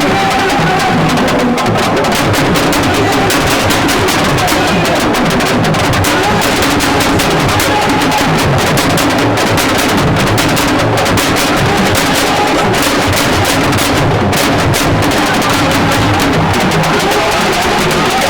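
Loud music with dense, fast drumming.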